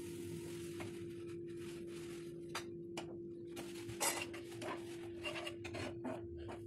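Spatula scraping and knocking against a frying pan in short strokes, stirring milk into grated carrots fried in ghee, starting about two and a half seconds in and coming faster near the end. A steady hum runs underneath.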